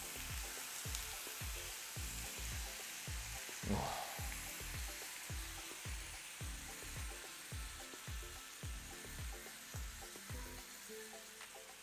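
Artichoke hearts sizzling in a hot frying pan in oil and freshly added orange juice, a steady hiss, with a brief knock about four seconds in.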